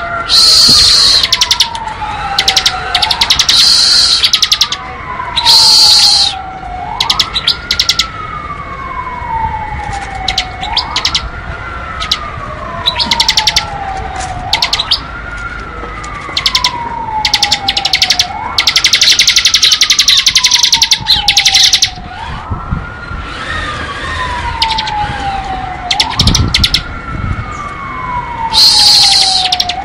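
Ciblek (bar-winged prinia) singing its 'ngebren' song: loud bursts of a rapid, drill-like high trill, some short and one lasting about three seconds. Under the bird, a siren-like tone repeats about every four seconds, each time rising quickly and then sliding slowly down.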